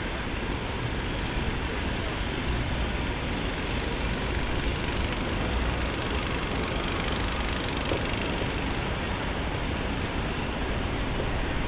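Steady city street noise of passing traffic, mixed with wind buffeting the microphone.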